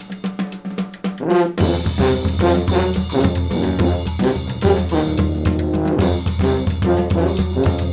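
Street brass band playing: brass horns such as trombones over a drum kit with bass drum and snare. The drums and low end come in fully about a second and a half in.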